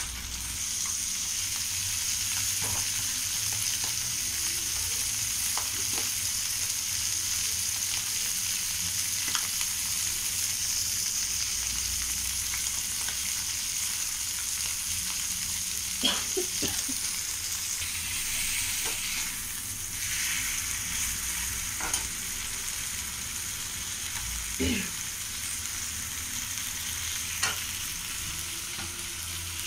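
Fish frying in shallow oil in an aluminium kadai: a steady high sizzle, broken a few times by short sharp clicks.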